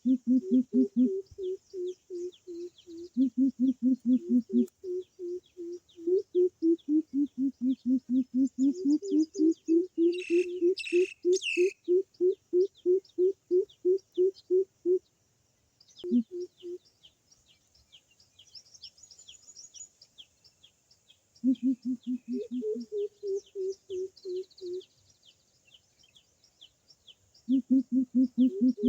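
Coucal calls played as a lure from a Bluetooth speaker: long runs of deep hooting notes, about three a second, in several bouts with short gaps. Steady high chirping runs underneath, and a louder, harsher call breaks in about ten seconds in.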